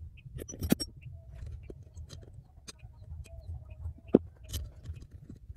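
Scattered metallic clicks and knocks from a car's EGR valve assembly and hand tools being handled and fitted, the loudest about ¾ of a second in and about four seconds in. Faint bird calls sound in the background.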